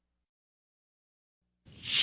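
Silence, then a hissing whoosh sound effect rises in about one and a half seconds in.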